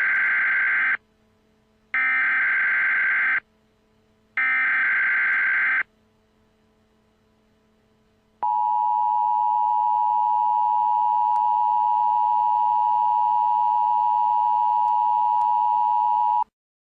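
Emergency Alert System tones: three short bursts of SAME header data, about a second and a half each with a second between them, then the steady two-tone EAS attention signal held for about eight seconds before it cuts off. The tones announce an emergency action notification.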